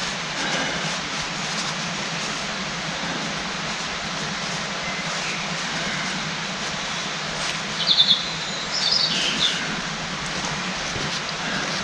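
Steady background hiss, with a small bird chirping a couple of short runs of calls about eight and nine seconds in.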